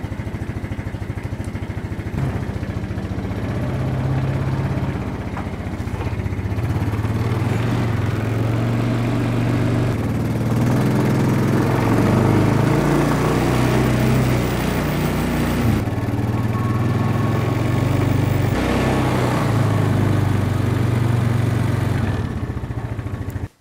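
Honda four-wheeler's single-cylinder engine running while the ATV is ridden, its note rising and falling with the throttle.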